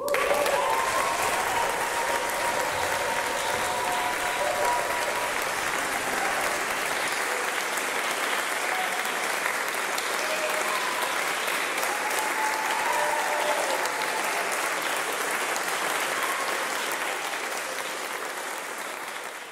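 Audience applauding: the clapping starts abruptly, holds steady, and fades away near the end.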